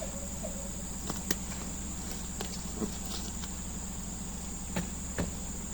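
Steady high-pitched insect chorus, with a few short clicks or knocks, the sharpest about a second in.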